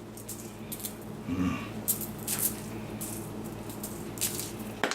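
A seasoning shaker shaken over raw bacon in a run of short, uneven bursts, its dry spice rattling and falling onto the meat.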